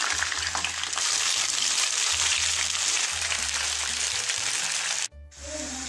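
Green peas sizzling and crackling in hot oil in a non-stick frying pan, a steady frying hiss that cuts off abruptly about five seconds in.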